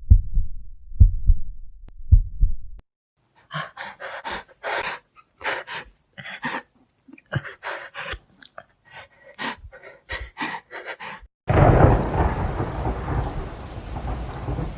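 Horror sound effects in sequence: a heartbeat's low paired thumps for about three seconds, then a run of short, ragged breathy noises. About eleven seconds in, a sudden loud thunderclap starts and rumbles on under a steady rain-like hiss.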